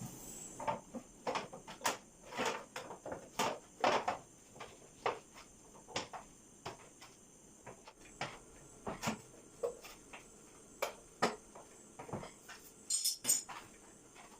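Irregular metallic clinks and knocks of hand tools and bolts being handled as a front mudguard is fitted back onto a motorcycle's front fork.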